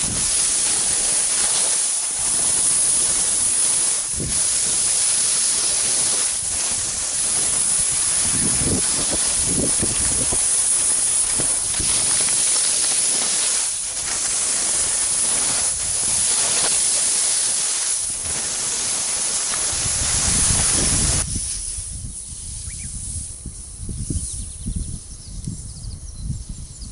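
Skis sliding and scraping over soft spring snow, a loud steady hiss. About 21 seconds in it stops, leaving a quieter low rumble.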